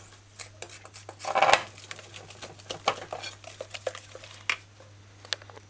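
Wooden spoon stirring thick pancake batter in a glass mixing bowl, with irregular clinks and scrapes of the spoon against the glass. The loudest scrape comes a little over a second in.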